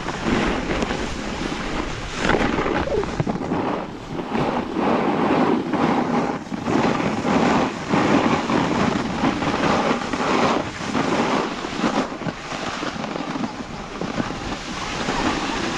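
Snowboard sliding and carving over groomed snow: a rough scraping hiss that swells and fades with each turn, mixed with wind buffeting the camera microphone.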